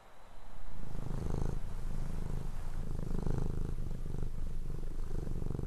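A low, fast-pulsing purring rumble that starts just after the beginning and swells and eases in slow waves.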